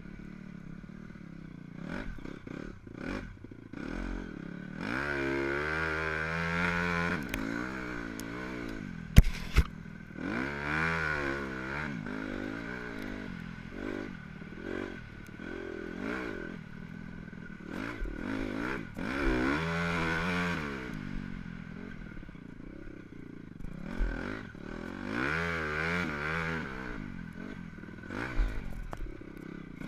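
Motocross dirt bike engine, heard from the rider's helmet, revving up and dropping off again and again as it is ridden around a sandy track. A sharp knock about nine seconds in is the loudest moment.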